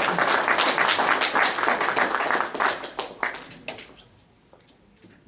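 Audience applauding, a dense spread of claps that thins to a few scattered claps and dies away about four seconds in.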